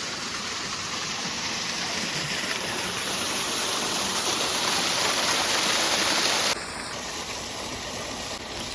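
Steady rush of a waterfall, growing louder, then dropping abruptly to a softer flow about six and a half seconds in.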